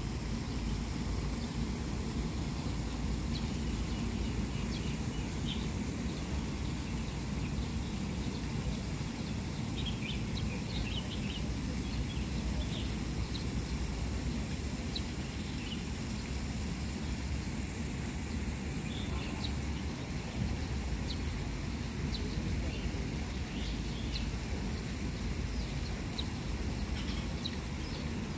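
Outdoor ambience: a steady low rumble with short, scattered bird chirps.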